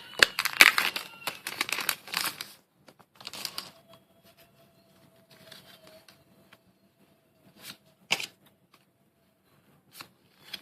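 Foil booster-pack wrapper crinkling as it is handled, dense for the first couple of seconds and again briefly a little later, then only sparse rustles and light clicks of trading cards being handled.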